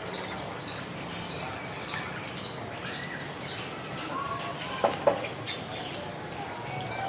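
Village birds calling: one bird repeats a short, high, falling note about twice a second, pauses for a few seconds about halfway through, then starts again near the end. Other birds chirp in between, and a thin steady high-pitched tone runs underneath.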